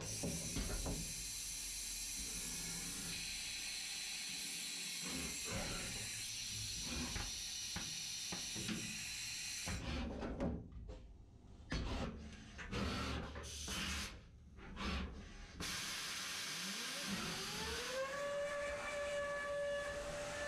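Biemmepi 5-axis CNC milling machine for eyeglass frames at work. A steady high hiss and whine runs for about ten seconds, then a run of sharp knocks and clicks as the pneumatic clamping fixture moves. Near the end the spindle spins up with a rising whine that levels off into a steady high tone.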